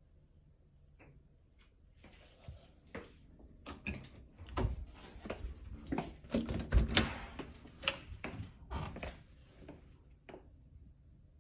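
A door being unlatched and opened: a run of clicks and knocks over several seconds, the loudest a thump about seven seconds in.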